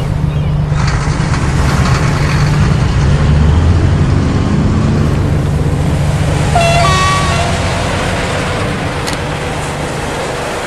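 Road-traffic soundscape played over the model layout: a steady low rumble of vehicle engines, with a short two-note horn toot, stepping up in pitch, about six and a half seconds in.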